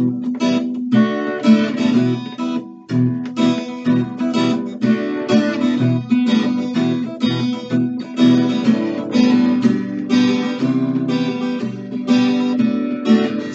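Acoustic guitar strummed in a steady rhythm of full chords, the instrumental introduction before the singing comes in.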